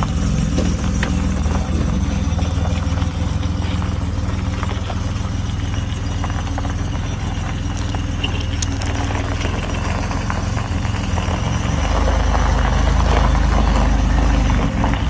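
Buick Grand National's turbocharged V6 idling as the car creeps slowly across gravel, the low rumble getting louder about twelve seconds in.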